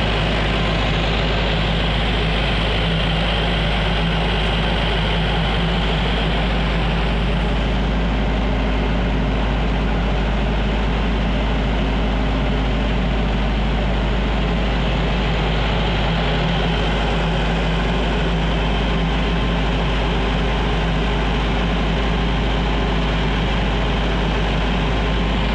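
Silent-enclosure 50 kVA diesel generator set (GFS 40W) running steadily at constant speed, a heavy, unbroken low engine sound with a steady hum.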